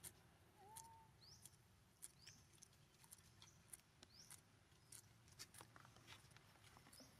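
Near silence: faint outdoor quiet with scattered light clicks and a few short, high rising chirps.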